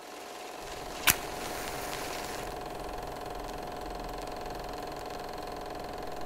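Steady mechanical whirring with a constant hum, fading in, with a single sharp click about a second in.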